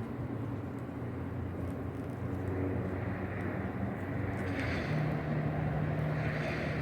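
Steady low mechanical hum, like a running engine, over a faint even background noise; one low tone grows stronger about five seconds in.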